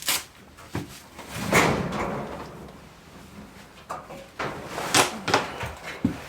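Irregular knocks and clunks from a clothes dryer's drum being lifted and shifted inside its sheet-metal cabinet while a new drive belt is fitted, with the loudest clunks about one and a half seconds in and near five seconds.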